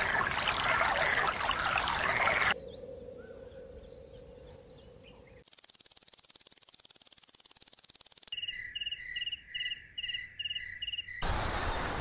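Insect sounds spliced together: a loud, high, rapidly pulsing buzz lasting about three seconds, then cricket chirps repeating about three times a second. A louder rushing noise cuts in near the end.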